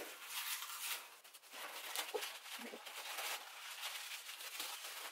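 Faint rustling and crinkling of a fabric head scarf as it is tied in a bow and adjusted on the head.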